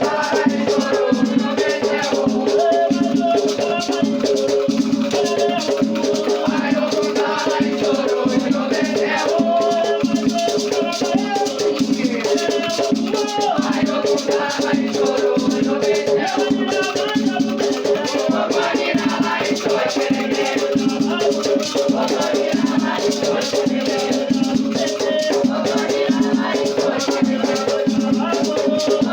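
Afro-Brazilian batuque ritual music: rattles shaken in a fast, steady beat over drums, with singing voices.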